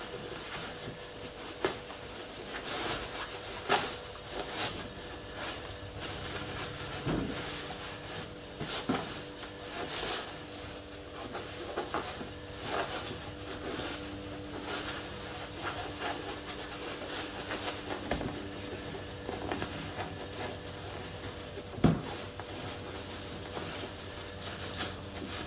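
Cloth and wadding rustling and rubbing as hands pack stuffing into the base of a fabric-covered body, with scattered light knocks and taps against a wooden tabletop.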